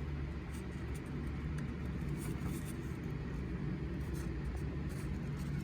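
Steady low background hum, with a few faint rustles and ticks of paper being handled.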